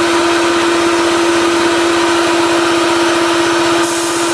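Gas-engine-driven Craftsman air compressor running steadily, a constant hum over an even engine pulse and hiss.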